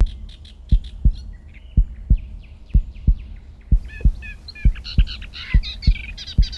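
Intro soundtrack: a deep thumping beat in pairs like a heartbeat, about one pair a second, under layered birdsong chirps that grow busier and louder about four seconds in.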